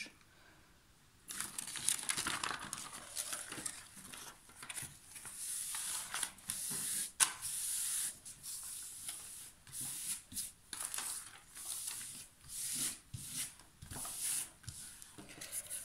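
Diamond-painting canvas and its paper backing rustling and crackling as it is handled, turned over and smoothed flat by hand, in uneven bursts starting about a second in.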